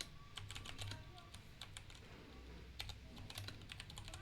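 Typing on a Kreo computer keyboard: quick runs of keystrokes with a brief pause in the middle.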